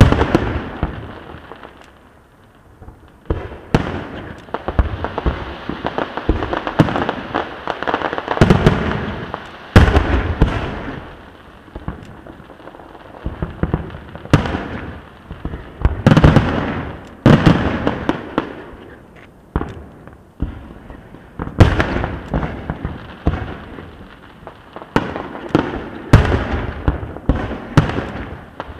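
Aerial fireworks shells bursting in quick, irregular succession: deep booms, each trailing off in an echo, mixed with runs of sharper, denser bangs.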